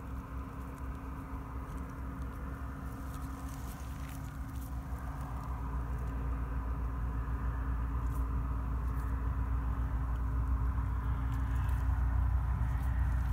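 A deer fawn chewing banana from a hand, with faint wet clicks of chewing, over a steady low rumble and hum that grow louder in the second half.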